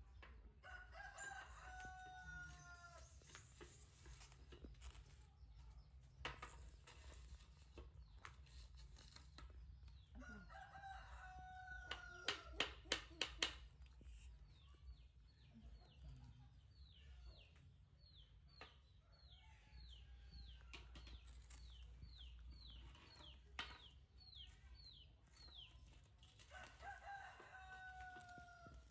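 A rooster crowing faintly three times, each crow a long call of about two seconds, with short high downward chirps in between. About halfway through there is a quick run of sharp clicks, the loudest sound here.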